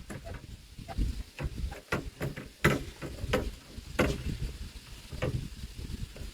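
Irregular clicks and knocks of small-sailboat parts being handled and fitted, over a low rumble.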